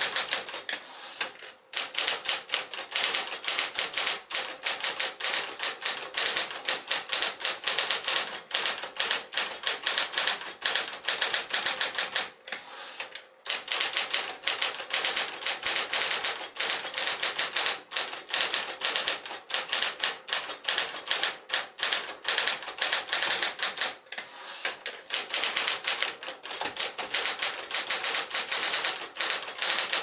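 Early Smith-Corona Coronet electric typewriter being typed on: a fast, steady clatter of keystrokes, with a brief pause near the start and a gap of about a second partway through.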